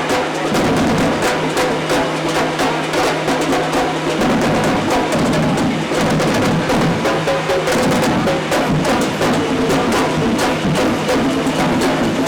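Drums and percussion playing a fast, steady rhythm, with a sustained low tone underneath.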